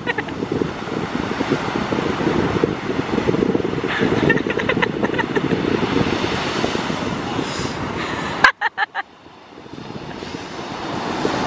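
Wind buffeting the microphone over breaking ocean surf, a steady low rumbling noise. It drops out suddenly about eight and a half seconds in, then builds back up.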